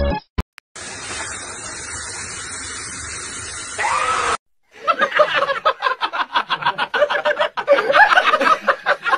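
Steady hiss of a hand-held shower spray for about three seconds, ending in a short rising-and-falling cry. After a brief gap, a person laughs hard in quick, repeated giggles to the end.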